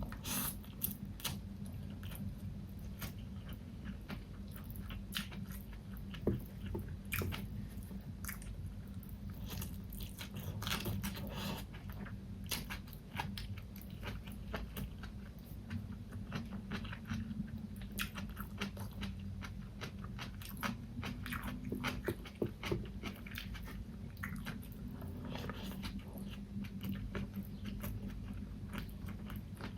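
Close-miked chewing and biting with many small crunches and wet clicks, over a steady low hum.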